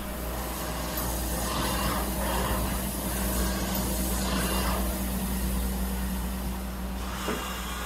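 CNC mill running a tapping cycle with an OSG A-Tap spiral point tap under flood coolant: a steady low machine hum with the hiss of coolant spray, which swells and fades a few times as the tap feeds in and out of the holes.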